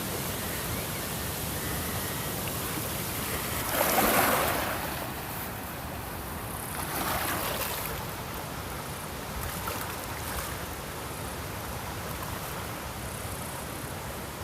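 Ocean waves breaking on a shore over a steady wash of surf. The loudest wave breaks about four seconds in, with smaller ones following about three seconds apart.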